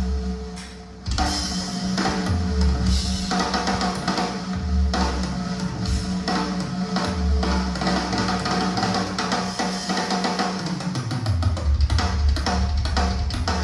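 Drum kit and guitar music played through a JBL Bar 2.1 soundbar and its subwoofer, with the bass turned up high. The level dips briefly about a second in, then the music carries on.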